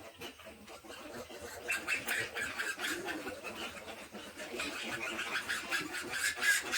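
Newborn piglets squealing in quick, repeated high squeaks, starting about two seconds in and growing louder near the end.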